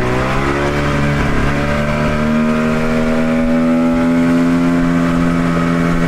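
Inflatable dinghy's outboard motor speeding up, its pitch rising over the first two seconds, then running at a steady pitch under way.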